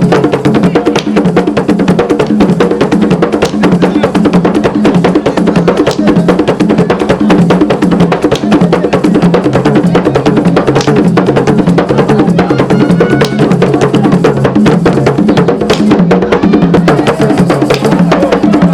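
Traditional African percussion music: deep drums beating a steady, pulsing rhythm, with a dense, fast clatter of sharp wooden strokes over it.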